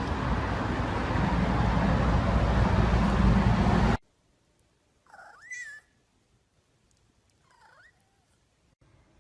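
Loud, dense noise with heavy bass that cuts off abruptly about four seconds in. After that comes a domestic cat meowing twice: one clear meow with a rising and falling pitch, then a shorter, fainter one about two seconds later.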